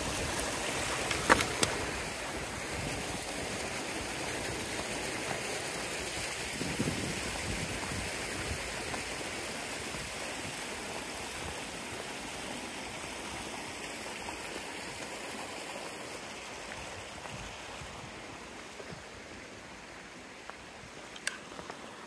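Shallow moorland stream running over stones, a steady rushing that grows gradually fainter, with a couple of sharp knocks about a second in.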